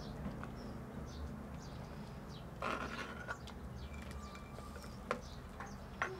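Small birds chirping faintly in the background over a low steady hum, while a metal ladle scrapes and clinks in a clay pot as broth is served.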